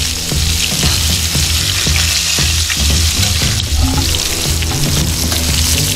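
Sweet potato fries deep-frying in hot oil, a steady, dense sizzle.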